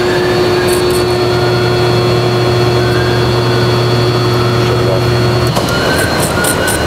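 A 200 HP three-phase electric motor running on power from a motor test set, with a loud steady electrical hum over its running noise. The hum cuts off abruptly about five and a half seconds in as the test set's output voltage is turned down, while the running noise goes on.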